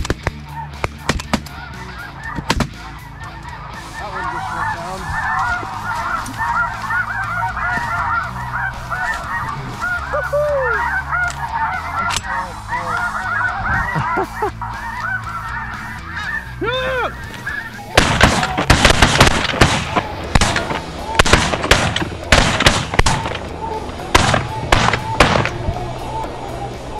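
A large flock of snow geese calling: a dense, continuous chorus of high yelping honks over low background music. A few sharp bangs near the start, and from about two thirds of the way in a loud rhythmic percussive beat takes over.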